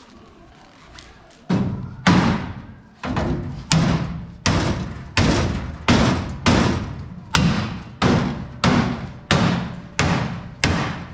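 About fourteen hammer blows on a dirt late model race car's bent tubular nose bar, roughly one every 0.7 s and starting about a second and a half in, each with a short ring. The nose bar is being beaten back into shape after it hit another car's tire.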